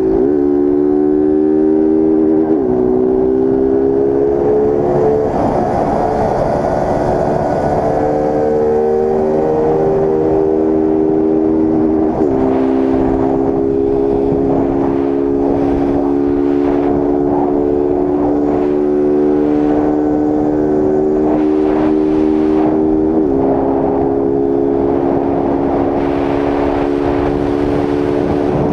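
Honda CG Start 160 single-cylinder four-stroke engine run at full throttle with its air filter removed, climbing in pitch through the gears. Several upshifts mark sudden drops in pitch, the last two far apart as it pulls slowly toward top speed.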